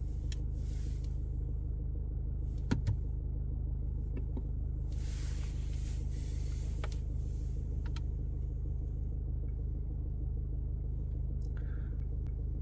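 Steady low hum inside a Mercedes W213's cabin, with a sharp click just under three seconds in, a short hiss about five seconds in, and a few faint ticks.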